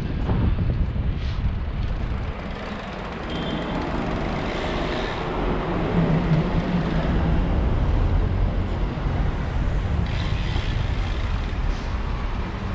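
City road traffic heard from a moving and then stopped bicycle, with wind rumbling on the bike camera's microphone and car and van engines running close by.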